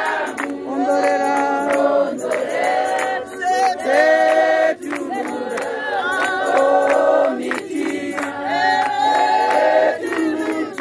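Group of women singing a hymn a cappella in several-part harmony, with notes held and phrases breaking every second or two, and hand claps over the singing.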